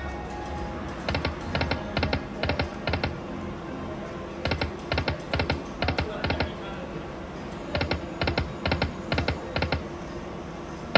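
Video slot machine spinning: three spins, each ending in five short electronic clicks in quick succession as the five reels stop one after another. Steady machine and casino background sound runs underneath.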